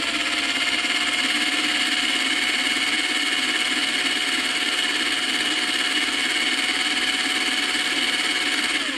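Small electric drill running steadily with a constant whine, spinning a wax candle in its chuck while a flat-blade screwdriver is pressed into the wax to carve a coil-winding channel. The motor winds down and stops near the end.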